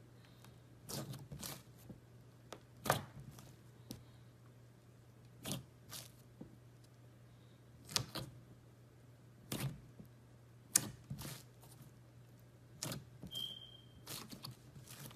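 Clear glitter slime being pressed and folded by hand, giving about a dozen sharp wet clicks and pops at irregular intervals of a second or so.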